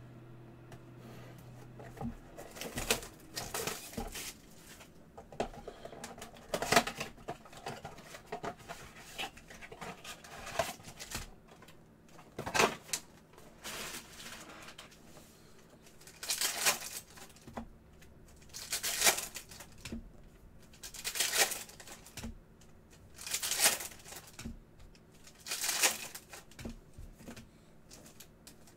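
Panini Prizm basketball card blaster box being opened and its foil-wrapped packs handled, then the packs torn open one after another, a sharp rip of wrapper about every two seconds in the second half.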